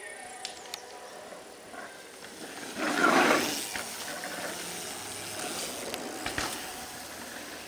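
Mountain bike tyres skidding and scrubbing through a loose dirt berm, a loud gritty rush about three seconds in. A short thump about six and a half seconds in as the bike lands off a small jump.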